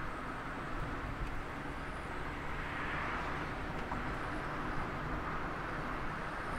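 Mazda ND Roadster on the move: steady wind and road noise over a low rumble, with the rushing noise swelling briefly about three seconds in.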